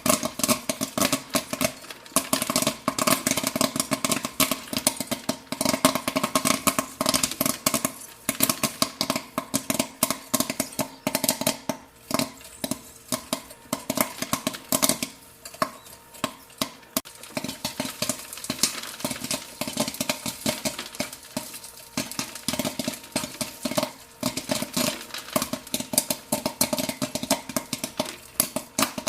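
Popcorn popping rapidly: dense, irregular pops, many a second, over a steady mechanical hum that fades for a few seconds around the middle.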